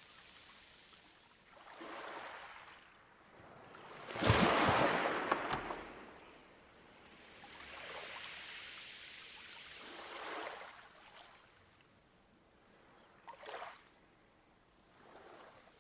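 Small waves washing up a pebble beach, about five of them, each a rush of hiss that swells and fades. The biggest breaks sharply about four seconds in, with a clatter of stones.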